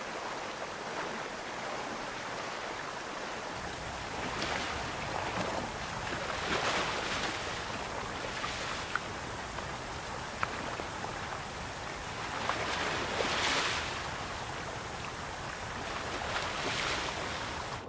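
Creek water rushing over rocks in white-water rapids: a steady rush that swells louder every few seconds.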